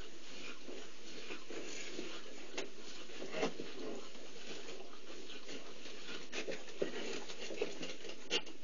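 Week-old cheetah cubs suckling and shifting at their mother's belly: many small wet clicks and rustles, with a few sharper ticks, over a steady low hiss.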